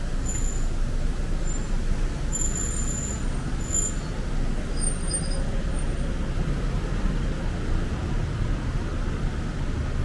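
City street traffic noise: a steady low rumble of cars running on the road nearby, with a few faint, short high squeaks in the first half.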